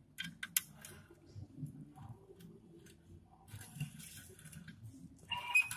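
Spanner clicking and clinking on the steel bolts and pressure plate of a tractor clutch as the bolts are checked for tightness, in scattered light taps, with a brighter ringing metal clink near the end.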